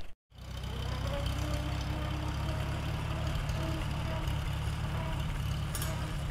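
1942 Farmall H tractor's four-cylinder engine running steadily as the tractor drives slowly, after a brief dropout at the start. A faint whine comes and goes over it from the freshly rebuilt rear end gears, which are not yet worn in.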